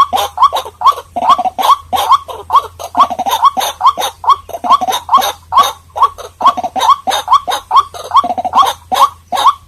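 White-breasted waterhen calling: a loud, rapid series of short upward-hooking notes, about two to three a second, mixed with lower, gruffer notes.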